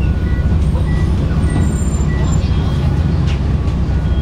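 City bus engine idling with a steady low rumble, heard from inside the cabin while the bus stands still. Faint short beeps at two alternating pitches repeat about three times a second through the first half.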